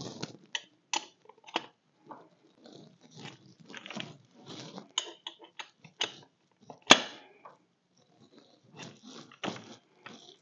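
Click-type torque wrench with a ratchet head and extension working the lug nuts on a compact tractor's wheel spacer: irregular ratchet clicks and metal scrapes, with one sharp, loud click about seven seconds in.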